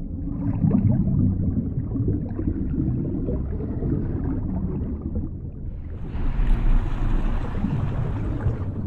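Animated underwater sound effects: a low churning rumble of moving water and bubbles, joined about six seconds in by a louder rushing hiss of the armor's thrusters, which stops just before the end.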